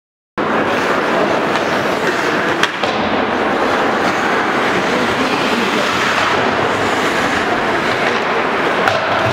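Ice hockey play heard in an indoor arena: skates scraping across the ice in a steady rush of noise, with an occasional sharp click of stick on puck. The sound cuts in after a split second of silence.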